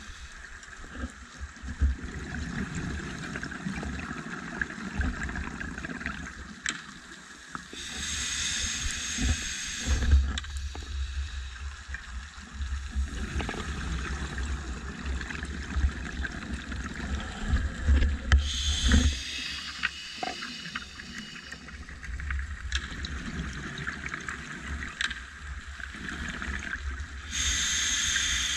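Scuba diver breathing through a regulator underwater: a hissing inhale about every ten seconds, three in all, each followed by low bubbling rumble as the breath is let out.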